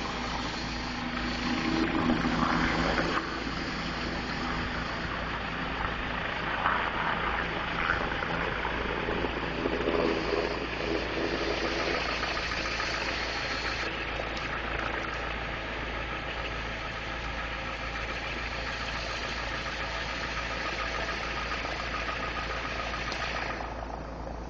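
A car engine running, with a steady rushing noise over it; a deeper hum rises and falls in the first few seconds.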